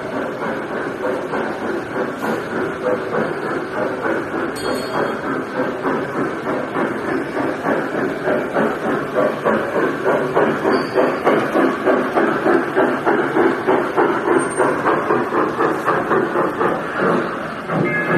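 Children's trackless ride-on train running past close by. It makes a rhythmic chugging of about two or three beats a second that grows louder from about halfway through, over steady background noise.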